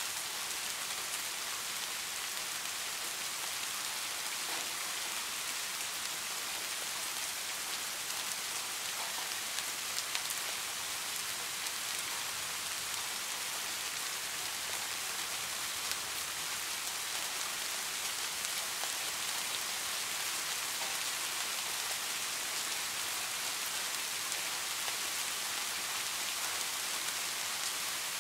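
Steady rain falling: an even, unbroken hiss with a few sharper drop ticks here and there.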